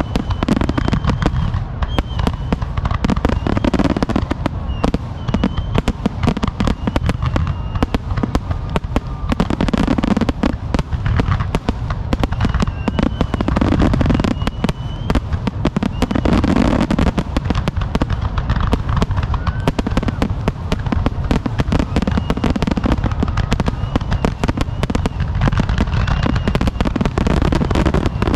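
Fireworks going off in rapid, near-continuous succession: a dense run of sharp bangs and crackling pops with a deep rumble underneath. Faint short, wavering high whistles come through now and then.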